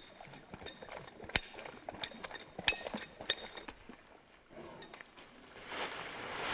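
A dog splashing and wading out of shallow water, with scattered sharp splashes and knocks, then dry leaves rustling as it rolls in them near the end.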